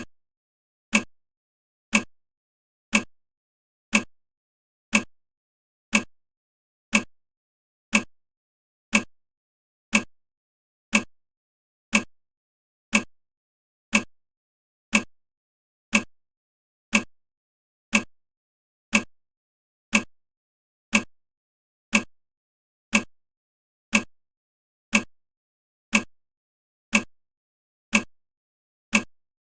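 Countdown timer's ticking sound effect: one short, sharp tick every second, evenly spaced, with silence between ticks.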